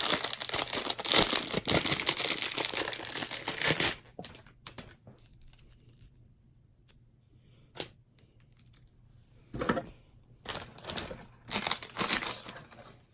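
Packaging being crinkled and torn, steady for about the first four seconds. It then drops to a few scattered clicks, with three short rustles near the end.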